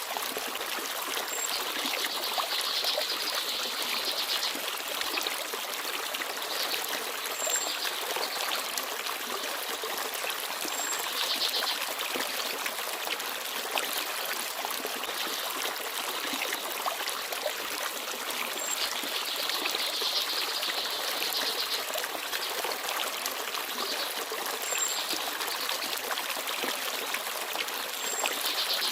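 Small forest stream babbling and trickling steadily, with a brief, very high bird peep every few seconds.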